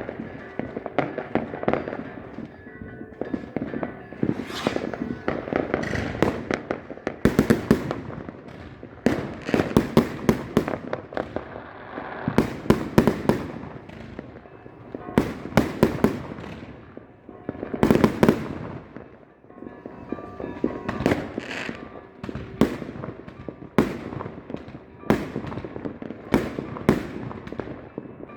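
Fireworks going off: clusters of sharp bangs and crackling come every few seconds, and each cluster is followed by an echoing tail.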